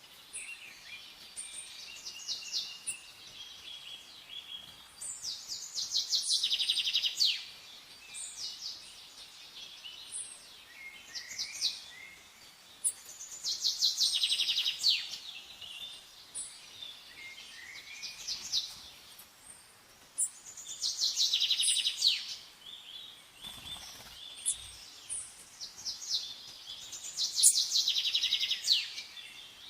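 Songbirds singing. One bird repeats a song phrase about every seven seconds, a rapid trill of many quick high notes lasting a second or two, with scattered shorter chirps from other birds between the phrases.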